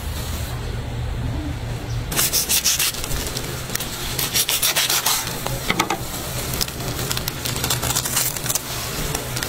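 A knife sawing through the crisp breadcrumb crust of a deep-fried hot dog in a paper sleeve on a wooden board, crunching and scraping in several bursts.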